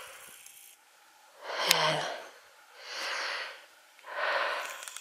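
A man breathing, three breaths about a second apart, the first with a short voiced huff in it.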